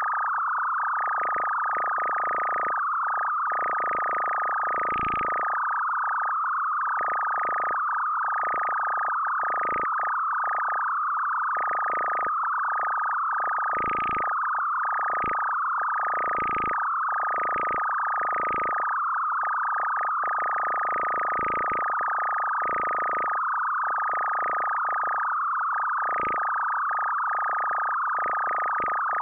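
Electronic music track: one steady, high sine-like tone held throughout, with warbling chirps that flare above and below it at irregular intervals of about half a second to a second.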